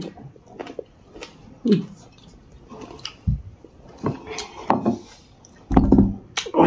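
Crunchy chewing and biting of raw cucumber, with scattered small clicks and crackles. Near the end comes a heavier thump as a small steel bowl is set down on a wooden table.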